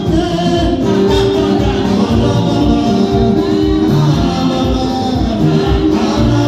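A small vocal group singing a gospel song into microphones over amplified accompaniment with a steady beat.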